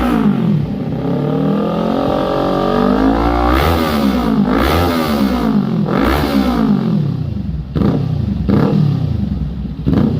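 Motorcycle engine revved through a Villain C36 slip-on exhaust in repeated throttle blips, the pitch climbing and falling with each, then three short quick blips near the end.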